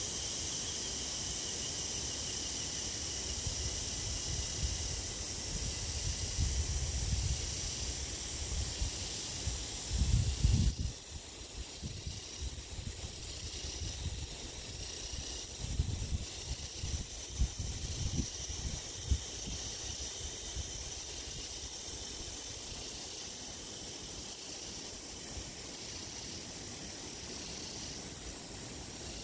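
Steady chorus of bush insects with a regular high pulsing chirp. Low rumbles on the phone's microphone, loudest about ten seconds in, with a few more shortly after.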